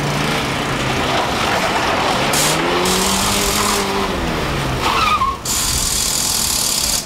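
Mk1 VW Jetta's 1300cc four-cylinder engine working hard through a cone slalom, its note rising and falling as the driver comes on and off the throttle. A brief tyre squeal rises about five seconds in.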